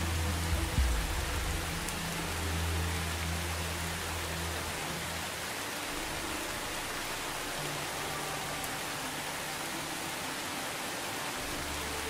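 Steady rain falling on leaves and grass, an even hiss, with a low rumble under it in the first few seconds.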